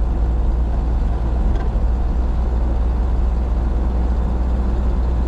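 A vehicle driving along, heard as a steady low road and engine rumble.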